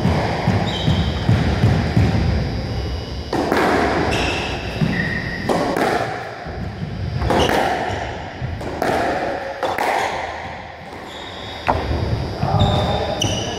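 Squash rally: the ball cracking off racquets and hitting the walls in repeated sharp knocks from about three seconds in, with short squeaks of court shoes on the wooden floor.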